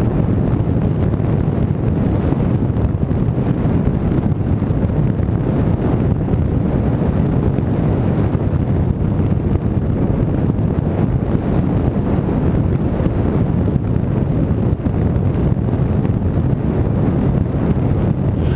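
Steady wind rush over the microphone: airflow buffeting an onboard camera on a flying radio-controlled model aircraft.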